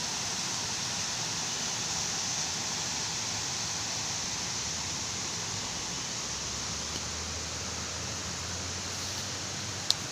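Steady outdoor background hiss, strongest in the high range, with one sharp click near the end.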